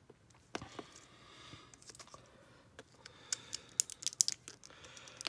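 Small red cutters snipping and working at a twisted plastic candy-style wrapper: scattered light clicks with some crinkling of the plastic, the clicks coming thicker in the second half.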